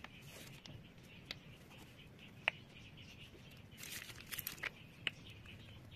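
Faint handling sounds from piping pastry cream out of a plastic piping bag: a few small sharp clicks, the loudest about halfway through, and a short crinkly rustle about four seconds in, over a faint steady hiss.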